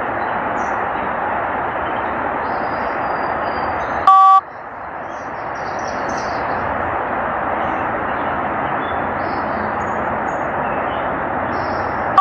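Steady hiss of static from a spirit-box communication app on a phone speaker, broken about four seconds in by a short two-tone electronic beep, after which the static fades back in.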